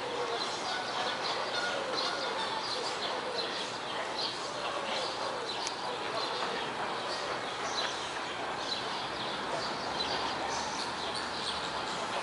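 Outdoor ambience of small birds chirping and singing, many short high chirps throughout, with a faint murmur of distant voices.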